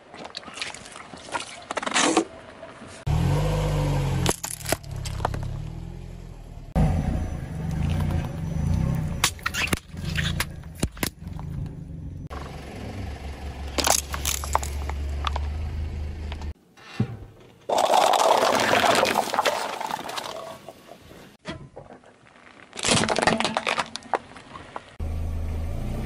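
A car tyre rolling over and crushing plastic bottles and other objects on pavement: a series of separate crunches, cracks and scrapes, each starting abruptly.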